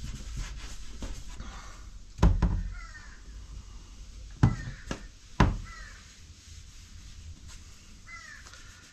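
Three sharp knocks as a solid cherry paddle and a plastic oil bottle are handled on a cardboard-covered workbench while oil is wiped into the wood with a cloth: one about two seconds in, then two close together around the middle. A few short, high calls sound faintly in the background.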